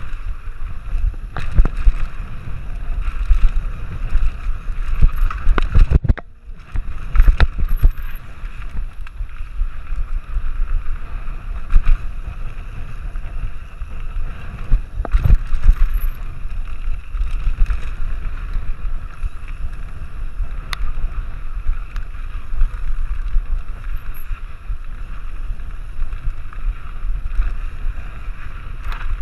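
Mountain bike running fast down a rough dirt trail: a continuous rumble and rattle of tyres and frame over the bumps, with wind buffeting the microphone. A few sharp knocks mark harder hits along the way.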